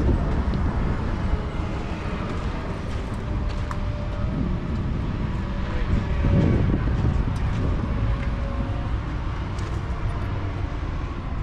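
Steady low rumble of vehicles.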